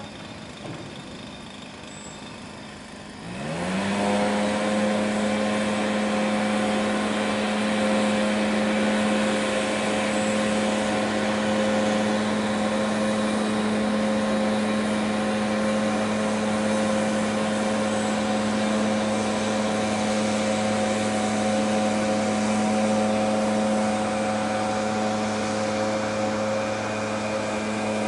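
Small engine of the blower pushing the canoe runs low, then revs up quickly about three seconds in and holds a steady high-speed drone at full throttle.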